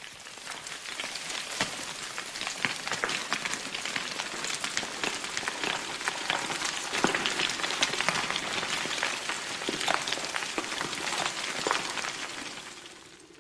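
Loose stones clattering and tumbling down a rocky slope in a small rockslide: a dense run of knocks and rattles that starts suddenly and fades out near the end.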